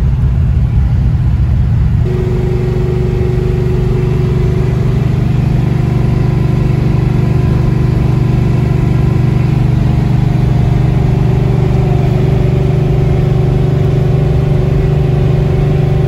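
1971 El Camino Super Sport's small-block Chevy V8 running steadily with a low, even exhaust drone, settling into a steadier note about two seconds in.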